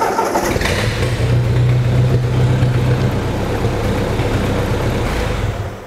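Ford 8N tractor's four-cylinder gasoline engine running steadily and strong, just started after a fresh ignition tune-up with new points, condenser, rotor, coil and spark plugs. It fades out near the end.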